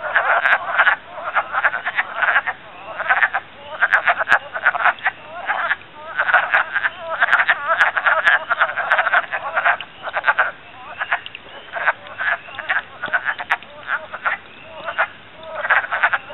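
Breeding chorus of many wood frogs: overlapping clucking calls in dense waves, dipping briefly every few seconds.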